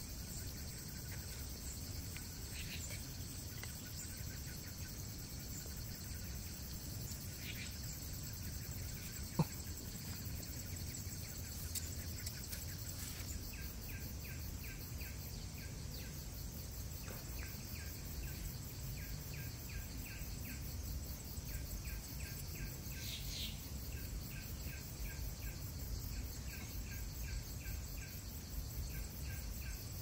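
Insects, crickets among them, calling in a steady high chorus, with a rhythmic pulsing chirp joining in about halfway through. One sharp click about a third of the way in.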